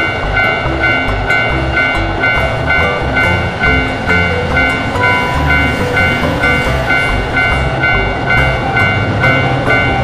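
Japanese railroad crossing warning bell ringing in a steady "kan-kan" about twice a second while an electric commuter train passes, with background music under it.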